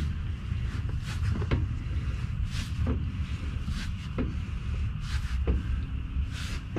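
Rear brake drum and axle of a car on jack stands turned slowly by hand, giving light clicks and scrapes about once a second, over a steady low rumble.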